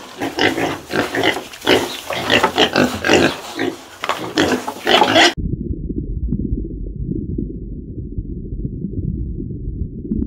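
A group of piglets grunting and squealing in quick, irregular calls. After about five seconds this cuts off abruptly into a steady, muffled low rumble.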